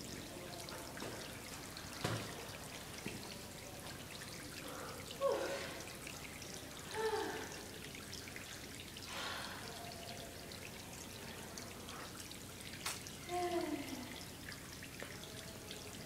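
Water of a small waterfall trickling and pouring down the rock of a slot canyon, a steady splashing hiss. A few faint, short falling voice sounds come through it, and there are a couple of light knocks.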